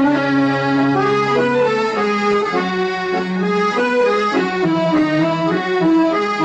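Instrumental music: a stepping melody of held notes over long sustained low notes, with no singing.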